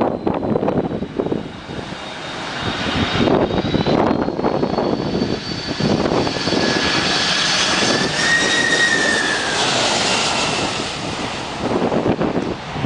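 Boeing 747's four turbofan engines on landing approach, passing low overhead: a loud jet sound with high whining tones that drop in pitch as the plane goes past, about two-thirds of the way in. Wind gusts on the microphone are heard before the whine builds.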